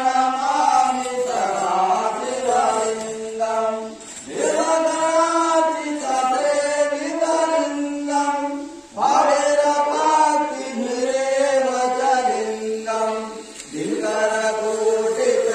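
Hindu devotional chanting in long held phrases, a new phrase beginning about every four to five seconds after a brief pause.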